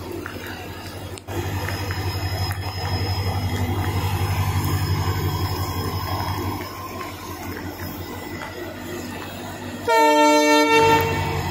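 Train locomotive's engine running with a steady low hum, then a single horn blast of about a second near the end.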